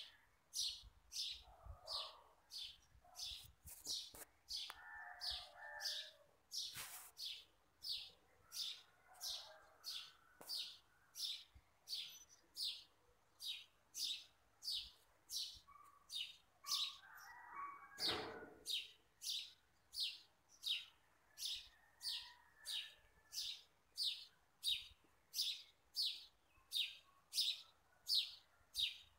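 A bird chirping over and over at a very steady pace, about one and a half short high chirps a second. One duller knock comes a little past the middle.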